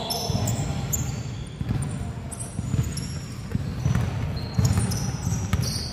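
A basketball dribbled on an indoor court floor, with repeated thuds, mixed with the squeaks of players' sneakers on the floor.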